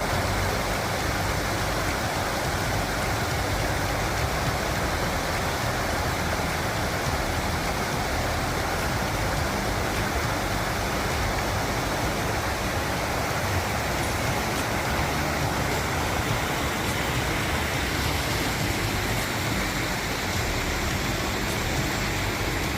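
Steady, even rushing noise with no beat or tone, starting and stopping abruptly.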